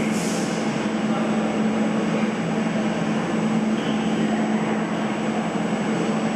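Steady droning hum of running industrial machinery, an even low drone with a hiss above it.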